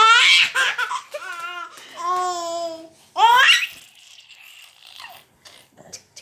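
Baby's high-pitched babbling squeals and laughter, several rising vocal bursts over the first three and a half seconds, then faint scattered clicks.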